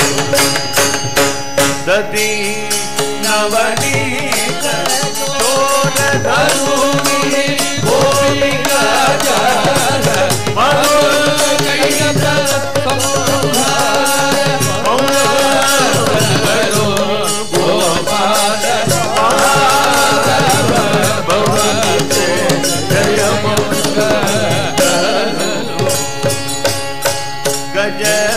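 South Indian devotional bhajan music: voices singing a gliding melody over a harmonium, with mridangam drums playing a dense, steady rhythm.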